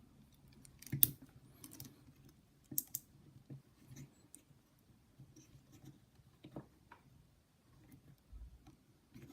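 Scattered light clicks and taps of a small action figure's parts being handled, pulled off and fitted, with the sharpest clicks about a second and three seconds in.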